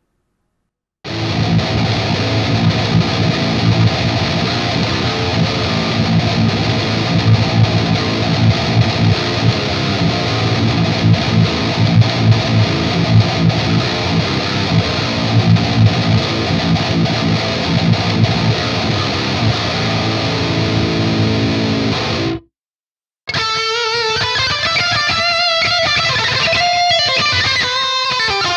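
B.C. Rich Shredzilla seven-string electric guitar played on its DiMarzio bridge pickup: a dense, full riff for about twenty seconds, a brief break, then a passage of separate single notes.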